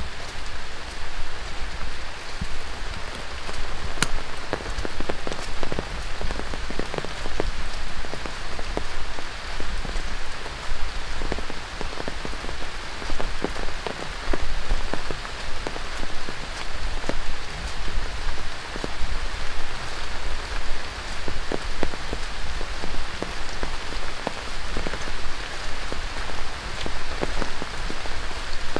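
Heavy tropical rain falling on dense rainforest foliage: a steady hiss with many separate drops ticking close by, over a low rumble. A single sharp click stands out about four seconds in.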